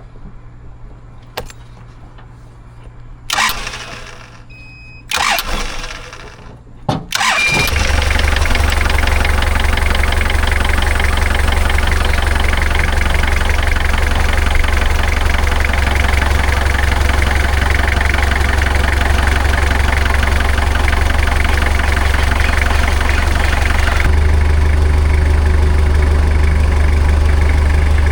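Komatsu 30 forklift engine started: two short bursts of sound, then it catches about seven and a half seconds in and runs steadily, its note shifting slightly near the end. This is the first start after a new hydraulic main pump was fitted.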